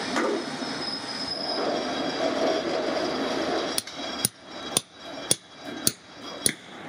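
Steady background din, then from a little past halfway a series of sharp metal-on-metal hammer taps, about two a second, each with a short metallic ring, as a ball bearing is driven down onto a drill spindle with a tube drift.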